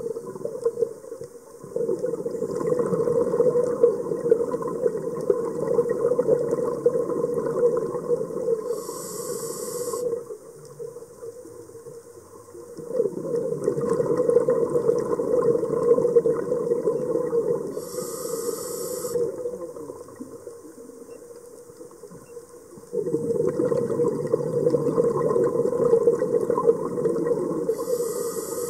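Scuba diver breathing through a regulator, heard underwater. There are three breath cycles, each a long bubbling stretch of several seconds ending in a short high hiss, with a few seconds of quiet between them.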